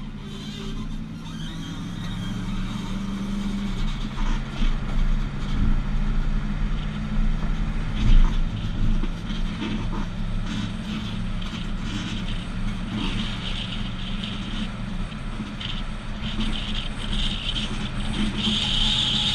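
2012 Chevrolet Silverado 1500's 5.3-litre V8 pulling a trailer at road speed, heard from behind the truck under road and wind noise. The engine note falls twice, about 4 s in and near 15 s. A single knock about 8 s in is the loudest sound.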